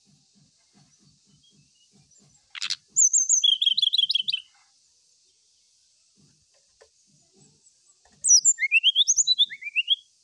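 Brown-chested jungle flycatcher singing: two bursts of rapid trilled song, each about two seconds long, the first starting a few seconds in and the second near the end with quick rising whistled notes.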